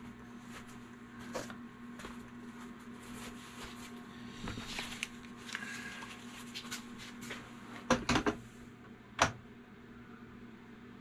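Metal clicks and clanks of a hand-held lead sinker mold being handled and set under a bottom-pour lead pot. A cluster of sharp knocks comes about eight seconds in and one more a second later, over a steady low hum.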